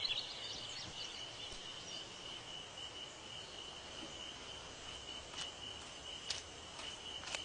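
Faint forest ambience: an insect drone held at one steady high pitch, with a few short sharp clicks in the second half.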